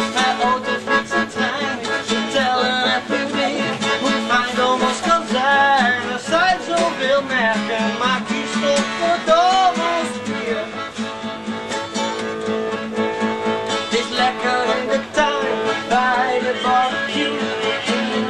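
Music: guitar and accordion playing over a steady beat, with a melody line weaving above.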